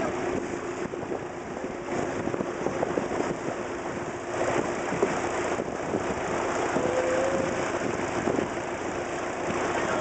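Boat engine running steadily under a constant rush of wind and breaking sea water.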